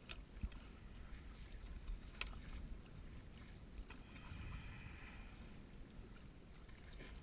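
Faint wind rumble on the microphone and water moving around a small boat, with a few light clicks, the sharpest about two seconds in.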